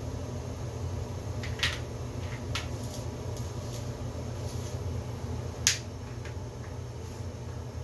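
Letter pieces of a wooden alphabet puzzle clicking and tapping against the board as a toddler handles and fits them: a few sharp clicks, the loudest near the end and another about a second and a half in, with fainter ticks between. A steady low hum runs underneath.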